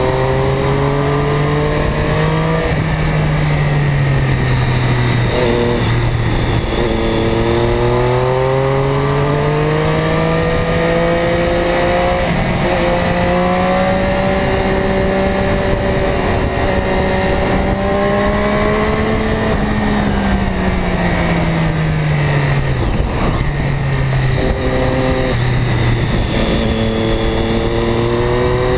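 Ducati Diavel's L-twin engine under way, revs climbing with short breaks at gear changes, then falling about two-thirds in as it slows for a bend, and picking up again near the end. Wind rushes over the microphone throughout.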